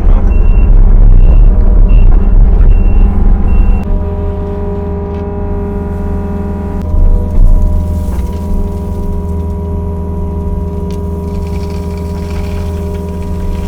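Kobelco SK55 mini excavator's diesel engine running with a heavy rumble while a travel alarm beeps about twice a second; about four seconds in the beeping stops and the rumble drops, leaving the engine running steadily, with a brief louder surge about seven seconds in.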